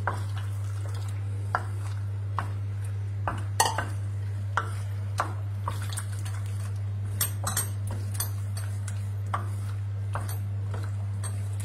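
Wooden spoon stirring rigatoni in a frying pan as the egg sauce is mixed in, knocking against the pan with irregular light clacks every second or so, over a steady low hum.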